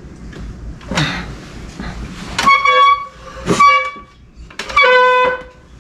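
A horn honking three times, each honk shorter than a second, after a single thump about a second in.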